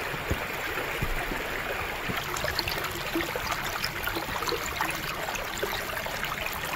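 Muddy floodwater rushing over the ground in a steady, even rush, with small splashes throughout.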